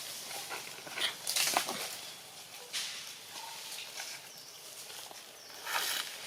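Macaques moving and feeding: short rustling, scuffling noises several times, the loudest about a second and a half in.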